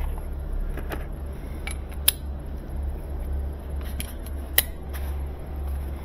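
Metal sockets and tools clinking in a toolbox drawer as a socket is picked out, with two sharper clicks about two and four and a half seconds in, over a steady low hum.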